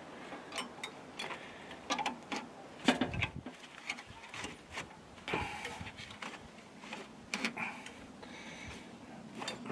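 Irregular light clicks, taps and a few scrapes of a thin metal cable being fed and worked through the boom of a mini-excavator.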